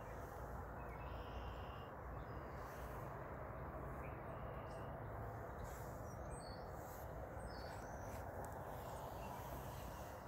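Small birds chirping briefly several times over a steady low background noise.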